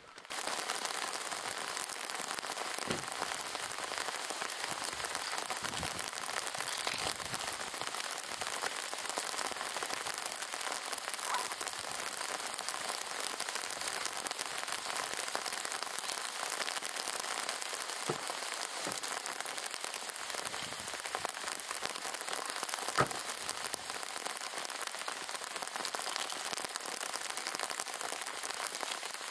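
Steady rain falling, an even hiss with a few sharper drop-like ticks, the loudest about 23 seconds in.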